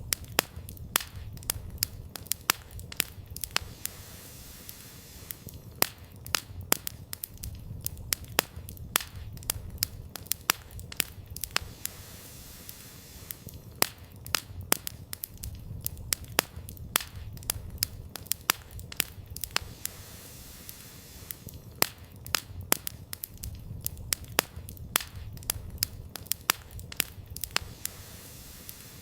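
Wood campfire burning, with sharp, irregular crackles and pops from the firewood over a low, steady rumble of flame.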